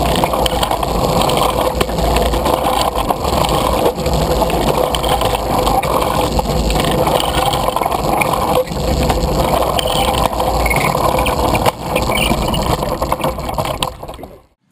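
Human-powered railway velocipede running along the track: a steady rumble and rattle of its wheels and frame, heard close up from a camera mounted on the machine, with a few sharper knocks. The sound fades out near the end.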